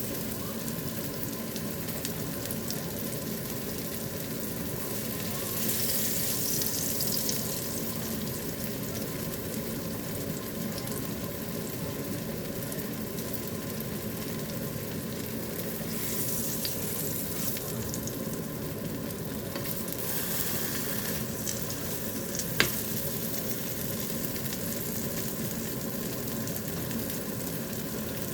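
Glutinous rice cakes sizzling steadily in a frying pan, swelling louder a few times. A single sharp click about three-quarters of the way through.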